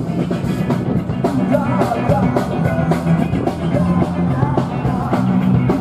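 Driving rock music with a steady drum beat, played loud.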